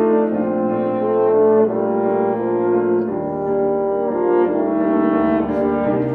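Two French horns playing sustained, harmonised melodic lines over piano accompaniment, moving from note to note about once a second.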